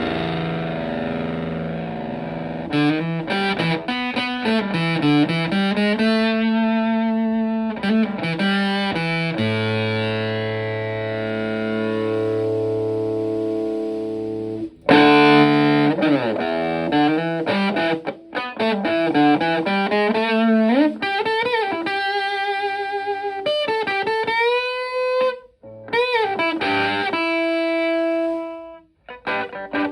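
Les Paul electric guitar played through a modified Vox Tone Bender fuzz pedal into a Fender Twin-style amp: long sustained fuzzy chords and single notes, with string bends and vibrato, and short gaps near the end.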